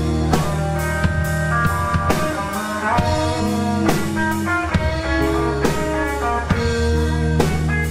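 Live rock band playing: two electric guitars, bass guitar and drum kit, with regular drum and cymbal hits under sustained guitar notes that change about every half-second.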